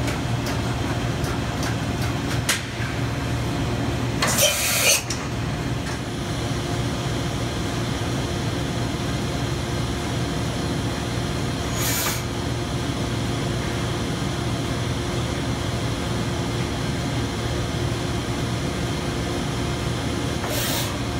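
Matsuura MC-550VX CNC vertical mill running through a tool-change cycle, a steady machine hum. Three short hisses of air come about four seconds in, about twelve seconds in and near the end.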